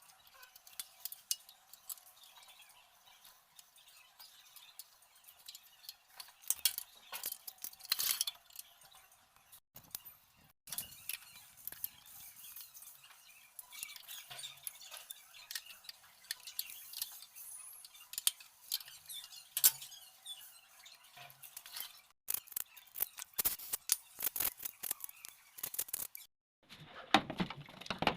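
Irregular sharp clicks and light metallic clinks of hand tools and small metal parts being handled and tapped.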